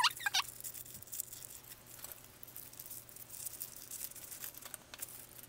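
Faint rustling and crinkling of a white paper wrapping being opened by hand around a small leather bookmark, with a few small ticks.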